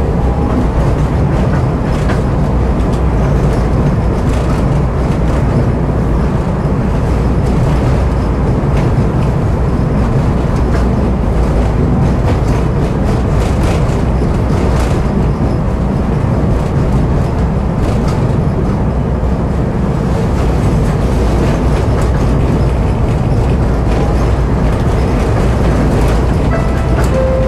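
Tram running along street track: a steady low rumble of wheels on rails, with occasional clicks and knocks. A short steady tone sounds near the end.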